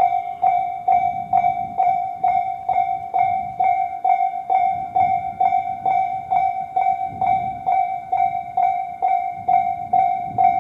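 Japanese electronic level-crossing warning bell of the Tobu type 'sound C', ringing steadily about twice a second as one clear ding over a faint steady higher tone. A low rumble swells and fades beneath it.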